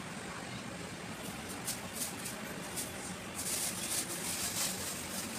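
A thin plastic bag crinkling as a kitten pounces on it and paws it: a few short crackles, then a longer rustle about three and a half seconds in, over a steady low hum.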